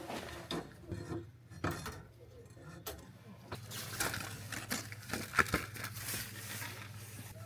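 Irregular metallic clinks, taps and knocks of tools and small metal parts being handled, the loudest about five seconds in, over a steady low hum.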